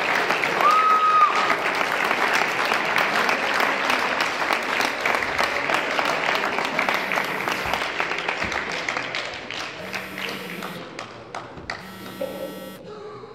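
Audience applauding a champion, many hands clapping and slowly dying away over about ten seconds. Near the end come a few short electric buzzes.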